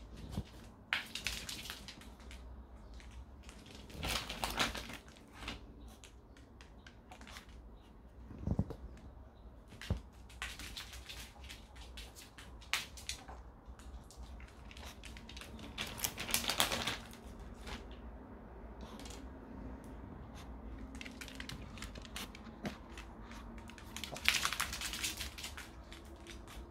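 Small dogs crunching dry food, in several short bursts of crackly chewing with quieter gaps between them.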